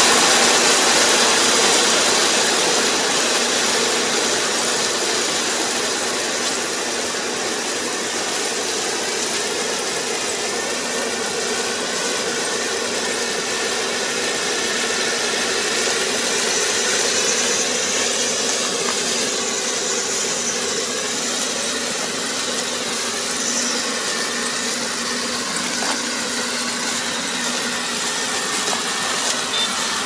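Crawler rice combine harvester running steadily as it cuts rice, its diesel engine and threshing machinery making a continuous mechanical hum that grows a little fainter over the first few seconds.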